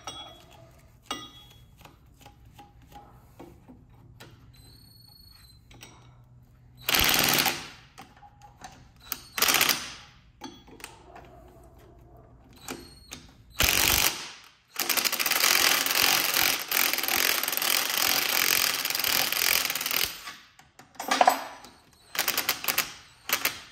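Cordless impact wrench hammering on the flywheel nut of a VW Beetle engine, in several short bursts and one long run of about five seconds. The nut does not break loose: the tool holding the flywheel bends instead.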